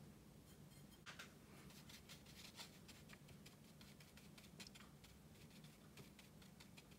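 Faint, irregular patter of a wet watercolour brush dabbing and stroking on rough Khadi cotton rag paper, many soft ticks in quick succession.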